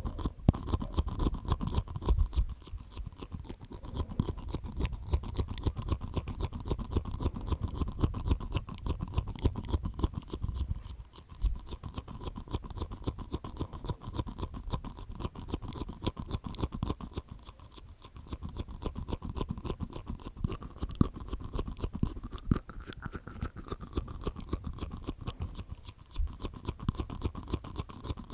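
ASMR mouth sounds made inside the mouth with the tongue and teeth: rapid clicking and tapping in long runs, with short breaks every several seconds.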